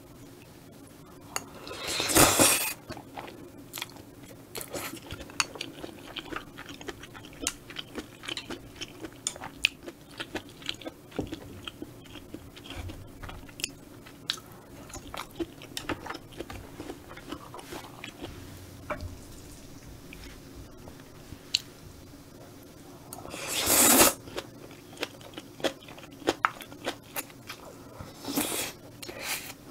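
Close-miked eating of spicy stir-fried squid and udon noodles: steady chewing with many small wet clicks, and loud slurps of noodles about two seconds in, again some twenty seconds later, and once more, smaller, near the end.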